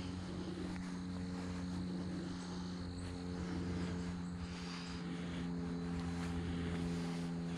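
Steady engine drone holding a few fixed low pitches, unbroken throughout.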